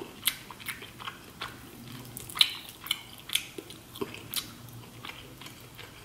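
Peeling shell-on boiled shrimp coated in Cajun garlic butter by hand, the shells crackling in irregular sharp clicks, mixed with chewing.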